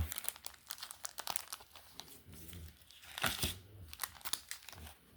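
Crinkling and rustling of packaging being handled and pulled apart, an irregular run of small crackles and tearing sounds.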